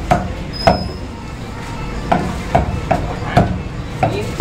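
Butcher's cleaver chopping raw chicken on a wooden chopping block: sharp thuds, two near the start, then after a short pause a quicker run of five.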